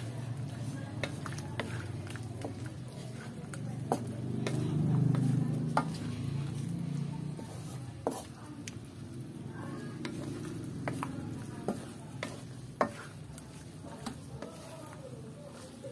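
Wooden spatula stirring and turning sliced fish cake and vegetables in a metal wok, with irregular sharp knocks of the spatula against the pan over a steady low sizzle of the frying sauce.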